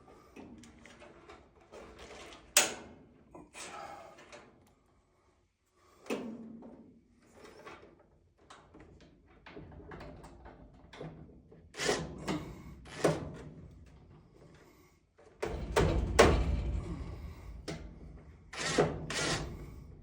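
Metal knocks, clunks and scraping as the furnace's blower housing is worked into its cabinet and fastened in place, in irregular bunches with a sharp knock a couple of seconds in and a heavier rumbling clatter about two thirds of the way through.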